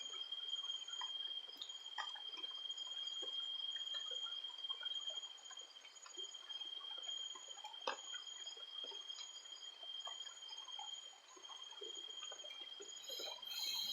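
Insects trilling: one high, unbroken trill with a second, pulsing trill above it, over faint scattered rustles and clicks, with one sharp click about eight seconds in.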